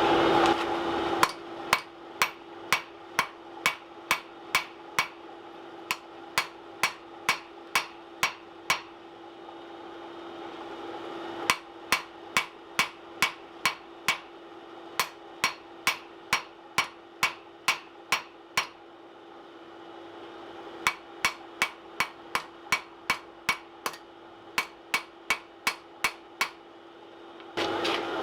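Hand hammer striking hot steel on an anvil, about two blows a second, in three runs with short pauses between, as the end of a coil-spring bar is drawn down for a ball punch. A steady hum runs underneath, stronger in the first half.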